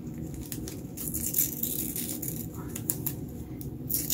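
Blue painter's tape crinkling and peeling off fingers as a long strip is handled, a run of small crackles and clicks, louder about a second and a half in and again near the end.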